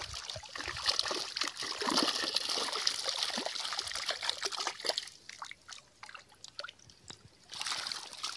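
Shallow water splashing and trickling as a fishing net full of small, thrashing fish is worked by hand, with many quick little splashes. It is busy for the first five seconds, drops off for a couple of seconds, and picks up again near the end.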